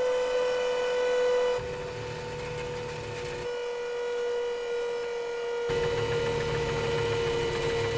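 Cartoon sound effects of a giant robot: a steady, siren-like electronic hum held on one note, with a low mechanical rumble that cuts out and back in several times.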